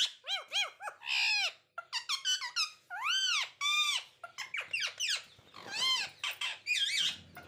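Caged pet parrots calling: a quick run of short, high, arching squawks, one after another with brief gaps between them.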